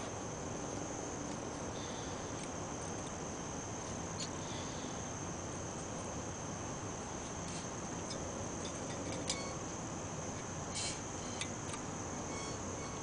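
Crickets trilling steadily over a low hiss, with a few faint clicks as the steel brake caliper bracket is handled.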